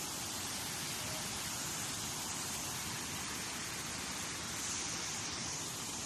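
Rushing water making a steady, even hiss with no separate events.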